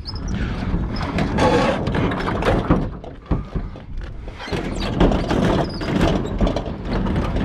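Scrap being handled and loaded: a run of irregular clattering knocks and thuds over a continuous low rumble.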